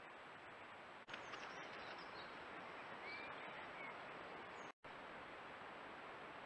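Steady faint hiss from a trail camera's microphone. Between about one and four seconds a few faint bird chirps come through, short rising and falling calls. The sound drops out for an instant near five seconds.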